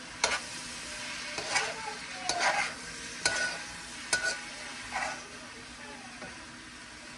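A cooking utensil stirring food in a sizzling pan. There are about six sharp scrapes and knocks against the pan over the first five seconds, a couple of them ringing briefly like metal, over a steady sizzle.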